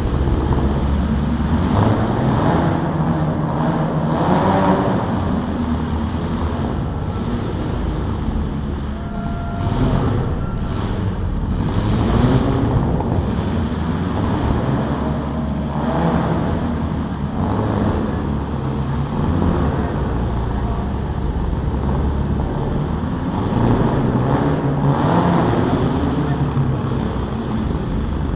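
Engines of compact demolition-derby cars revving hard, over and over, rising and falling in pitch, with a few knocks about ten to twelve seconds in.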